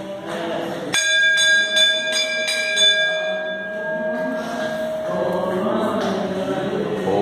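A temple bell struck rapidly, about three strokes a second, starting about a second in and going for two or three seconds, then ringing out. Group chanting runs before the bell and resumes as the ringing fades.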